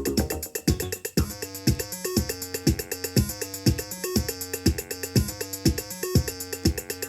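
Late-1980s house music played from a vinyl record: a drum-machine kick about twice a second under a repeating synthesizer riff.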